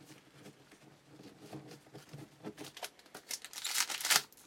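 Foil wrapper of a baseball card pack crinkling as it is picked up and opened: faint rustling at first, then a loud burst of crinkling about three seconds in.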